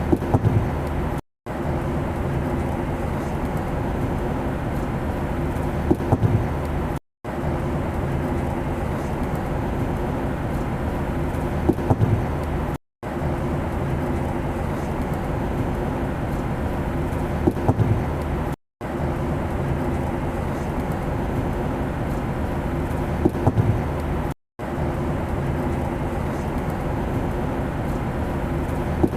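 Steady airplane engine drone with a low hum, a short recording looped about every six seconds: each repeat brings a few quick clicks and a brief cut-out to silence at the seam.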